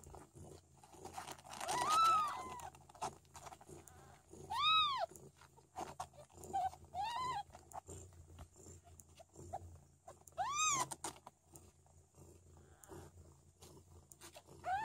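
Three-day-old Siberian kittens mewing while nursing: short, high cries that rise and fall in pitch, about six over the stretch, two of them overlapping a couple of seconds in.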